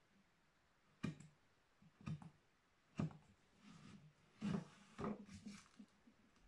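Hand carving tool cutting into a wooden relief panel: about five short, sharp clicks as the blade bites and chips break away, with brief scraping strokes between them.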